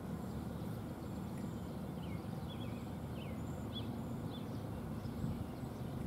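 A steady low rumble of outdoor background noise, with a few short, high bird chirps from about two to four and a half seconds in.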